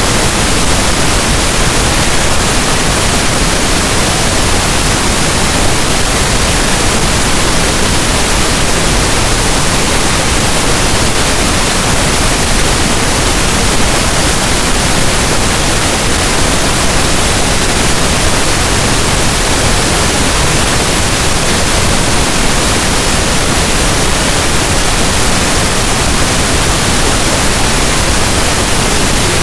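Synthetic pink noise: a loud, steady, even hiss across the whole range, unchanging throughout.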